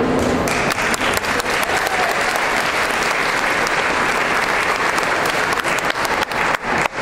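An indoor audience applauding with dense, steady clapping that thins out near the end.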